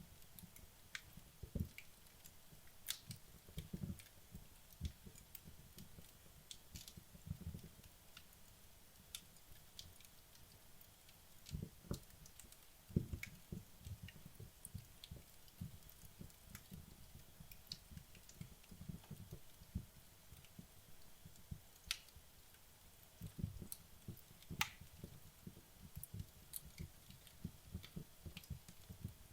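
Wood logs burning down in a fireplace, crackling quietly with sparse, irregular sharp pops and soft low thuds.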